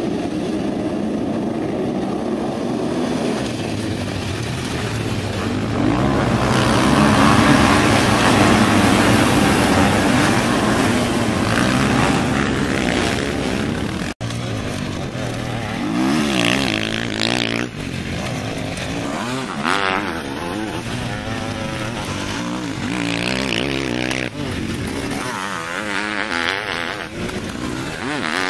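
Massed sidecarcross outfits racing off the start together, their engines swelling to a loud, dense noise about six seconds in. After a sudden break, single outfits' engines rev up and down as they accelerate along the track.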